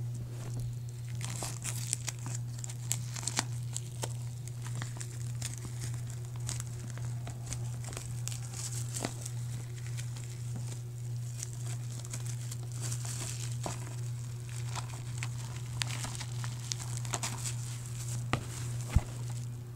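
Cellophane shrink wrap being torn and peeled off a DVD case, crinkling and crackling in irregular bursts over a steady low hum, with a sharp click near the end.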